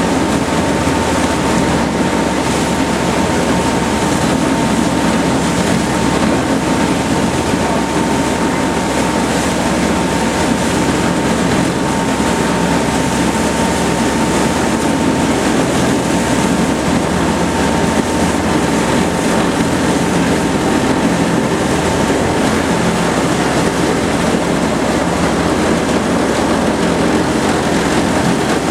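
Steady engine drone under a constant loud rushing noise, with a thin steady whine that fades out about two-thirds of the way through.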